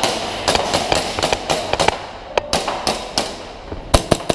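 Airsoft gunfire: a rapid run of sharp pops for about two seconds, thinning out, then a quick burst of the loudest pops near the end.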